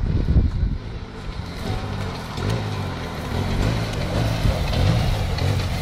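Side-by-side UTV's engine running as it drives down a slope toward the listener, a low drone that wavers in pitch and grows louder as it nears. A few low bumps come in the first half second.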